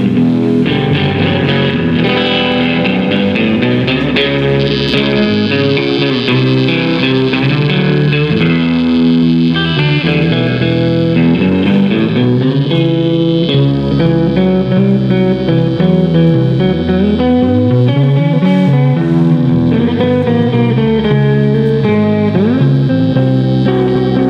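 Band music led by guitars over a bass guitar, with a steady level and no singing.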